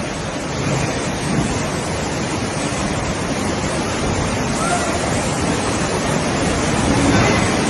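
Floodwater rushing, a loud steady rush of churning water.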